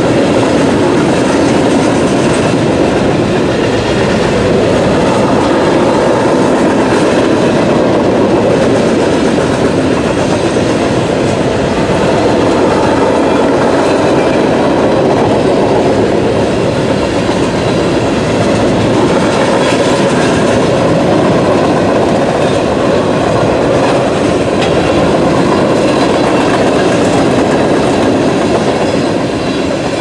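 Boxcars of a Norfolk Southern freight train rolling past, a loud, steady noise of steel wheels running on the rails.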